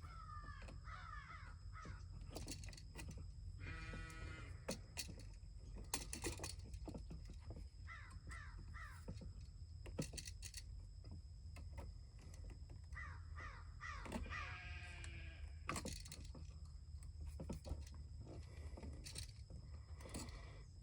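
Crows cawing in short calls several times, mixed with scattered sharp clicks and knocks.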